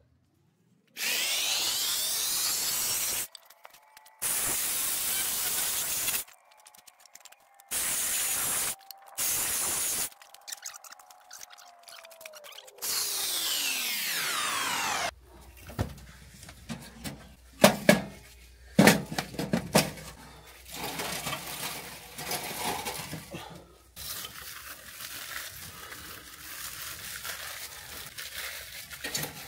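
Cordless electric chainsaw cutting dry logs in five bursts of high, even whine, spinning up at the first and winding down with a falling pitch at the last. Then cut pieces of wood knock and clatter, with two loud knocks.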